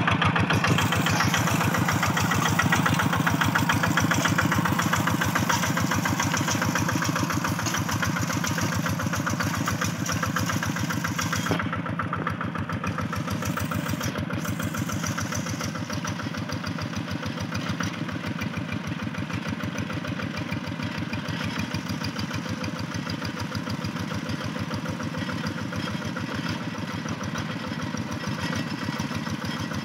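A two-wheel hand tractor's single-cylinder diesel engine runs steadily under load as it pulls cage wheels and a puddler through paddy mud. It grows gradually fainter as the tractor moves away.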